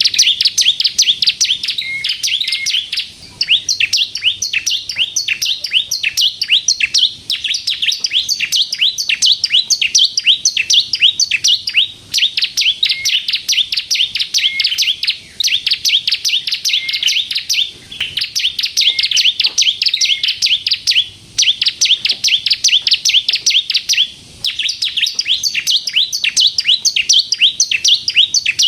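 Ciblek kristal (bar-winged prinia) singing nonstop: a fast, chattering run of sharp high notes, several a second, broken by short pauses every few seconds.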